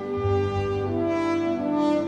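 Background music of slow, held horn-like notes over a low bass note, the chord changing about a second in.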